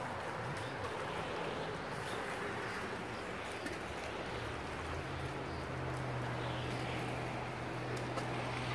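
Motorboat engine humming low and steady, coming in about halfway through, over a steady rush of wind and small waves lapping at the shore.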